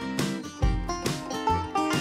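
Background instrumental music in a country or bluegrass style, with plucked strings over a steady beat.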